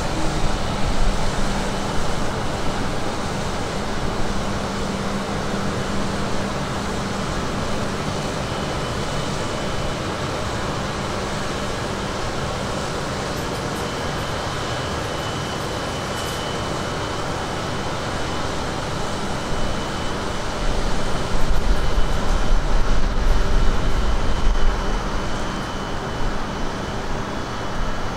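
Steady mechanical and washing noise of a Tohoku Shinkansen train creeping slowly through an automatic train-wash machine. A low rumble grows louder for several seconds near the end.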